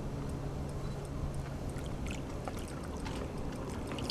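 Water splashing and sloshing as a large wels catfish is handled in shallow water at the end of the fight. Short, scattered splashes come from about two seconds in, over a low steady hum that stops around the same point.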